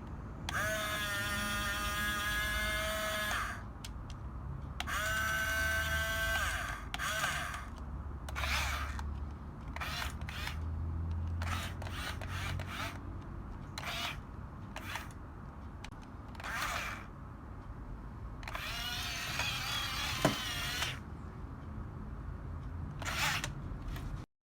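Small electric motors and plastic gearboxes of a Huina 6-channel RC bulldozer whining in repeated bursts as it is driven. There are two longer runs of a few seconds at first, then many short blips and a wavering run, each starting with a rising pitch as the motor spins up.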